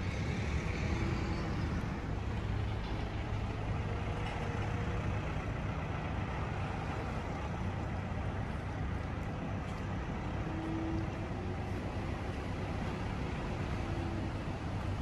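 Steady low rumble with an even hiss over it, unchanging throughout, with no distinct events.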